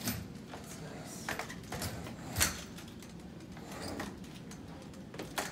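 Aluminium folding walker with front wheels being pushed along a hard floor in short steps: a series of irregular clicks and knocks about a second apart, the loudest about two and a half seconds in.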